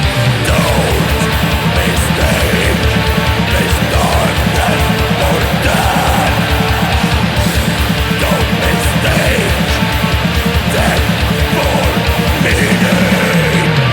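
Heavy metal music: distorted electric guitars over fast, evenly spaced kick-drum strokes, loud and dense throughout.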